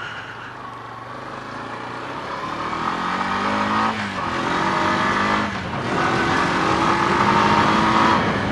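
Honda ATV engine accelerating under the rider: its pitch climbs and drops back twice, then holds steady as it runs on at speed.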